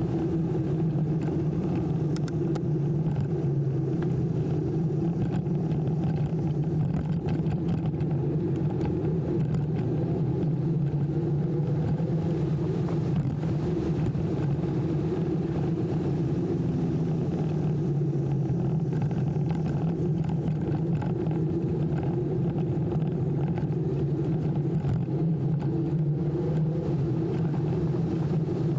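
Steady low rumble of an e-bike being ridden along a street: wind on the camera microphone and tyre noise on asphalt, with no breaks.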